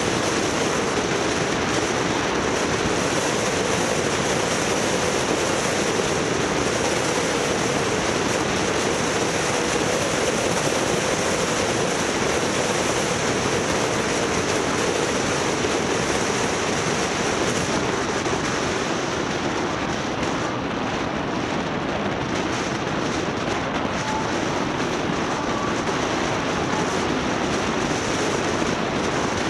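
Steady rushing road and wind noise of a moving vehicle, with a low hum that drifts slowly up and down.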